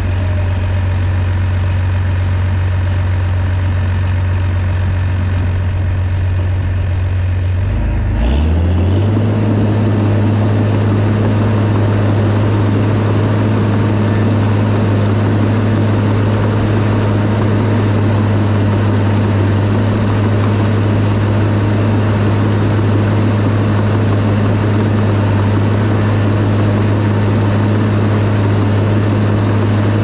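Case 850K crawler dozer's diesel engine running steadily under load as it pushes dirt. About eight seconds in, its engine speed dips briefly and comes back up.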